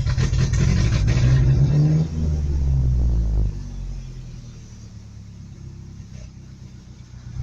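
Truck engine revving, its pitch rising for a moment, then dropping back about three and a half seconds in to a quieter, steady low running. The truck is struggling to stay running, which the owner takes for being out of gas.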